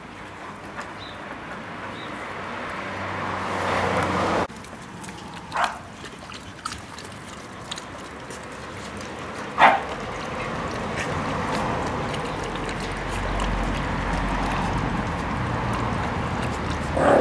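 Miniature pinscher puppies squabbling over raw meat, growling, with two short sharp yelps partway through.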